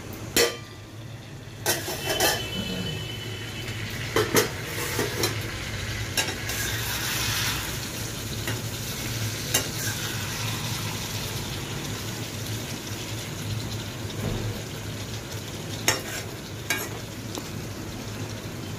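Vegetables frying in oil in an iron kadhai on a gas stove, sizzling steadily, with a steel spatula clinking and scraping against the pan every few seconds. A sharp clank of the steel lid comes right at the start.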